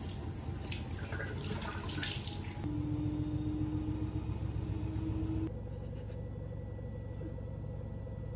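Bathroom tap running and water splashing as a face is washed at the sink, cutting off abruptly after about two and a half seconds. What follows is a steady low hum of a small bathroom with a faint steady tone.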